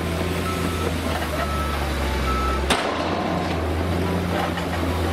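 Diesel engine of a heavy eight-wheeled dump truck running steadily while its tipper body is raised to unload sand. A high warning beeper sounds about once a second through the first half, and there is one sharp click near the middle.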